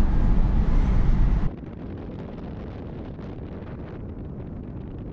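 Steady rush of wind and tyre noise from a car driving on a paved road. About a second and a half in it drops suddenly to a quieter, duller rush.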